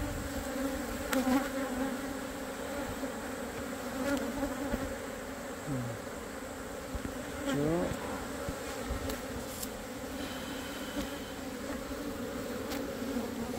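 Korean native honeybees (Asian honeybees) buzzing in numbers around a wooden box hive: a steady drone, with single bees flying close past now and then in a brief rising-and-falling buzz. The colony is agitated and stinging after its hive was worked.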